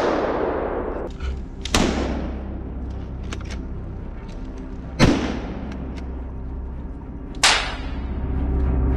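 Four gunshots a few seconds apart, each sharp crack trailing off in a long echo, over a low, steady music bed.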